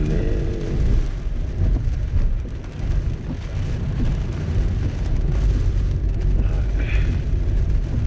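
Steady low rumble inside a Daihatsu Hijet Cargo kei van driving through a typhoon: road and engine noise mixed with strong wind and rain buffeting the body.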